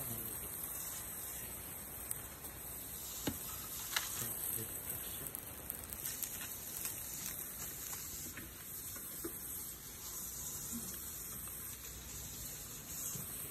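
Handling noise of a helmet and its plastic wrapping being turned over on a glass table: a few light clicks and knocks, the sharpest about three and four seconds in, over a steady high hiss.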